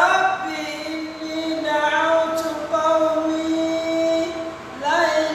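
A man's voice chanting Qur'anic recitation in Arabic, with long, drawn-out melodic notes; the phrase fades into a short pause and the next phrase starts near the end.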